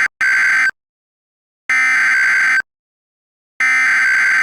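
Synthesized Emergency Alert System SAME header: buzzy, screechy bursts of digital data tones, each under a second long, repeated with about a second of silence between them. One burst ends about half a second in, the next comes near the middle, and a third starts near the end.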